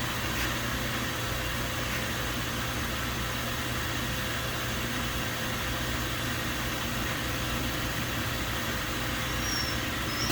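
Hot-water washer cleaning an engine cylinder head: a steady pump or motor hum under a constant water-spray hiss. The sound drops sharply at the very end.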